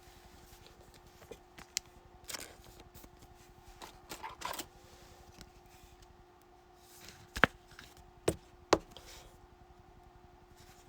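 Trading cards being handled: scattered light rustles and clicks, with three sharper taps in the second half, over a faint steady hum.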